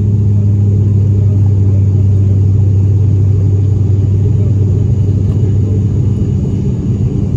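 ATR 72-600 turboprop's engines and six-bladed propellers heard from inside the cabin: a loud, steady low drone with a deep hum over rumbling noise.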